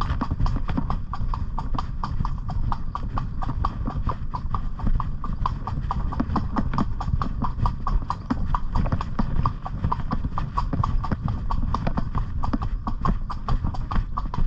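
A pony's hooves clip-clopping in a steady, even rhythm of hoofbeats as it is ridden, over a steady low rumble.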